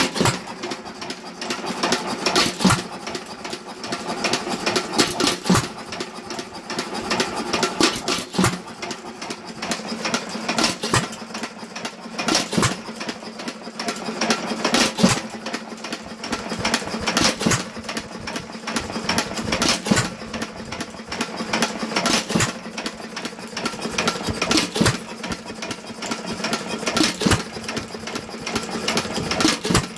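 Associated 1.75 hp air-cooled hit-and-miss engine running unloaded. A strong beat comes about every two and a half seconds, with lighter mechanical clatter between the beats. This is the governor letting it fire only now and then while it coasts.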